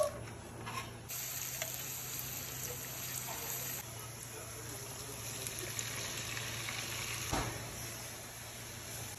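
Sliced onions dropped into hot oil in a frying pan, then a steady sizzle as they fry, with cut okra added a few seconds later. A single short knock near the end.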